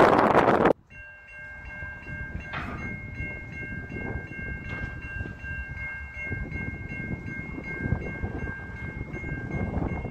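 A loud rush of wind noise on the microphone for the first second. Then a railroad crossing's electronic warning bell rings steadily in a quick, even rhythm of about three strokes a second, over a low rumble.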